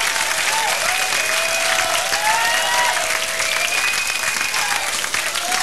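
Concert audience applauding, with several high whoops or whistles gliding up and down over the clapping.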